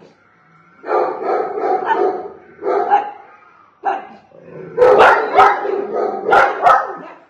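Pug barking in several runs with short gaps, loudest and sharpest just past the middle.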